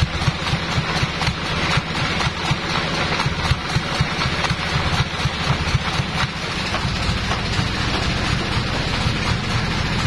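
Sawmill engine running at idle, not cutting, with a steady low drone and a dense rattle of clattering knocks.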